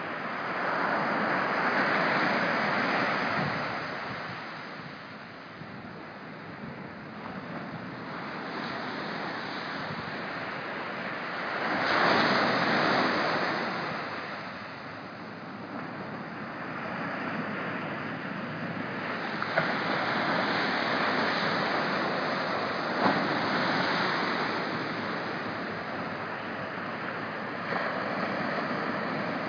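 Small ocean surf breaking on the beach: a steady wash of waves that swells and fades every several seconds, loudest about twelve seconds in.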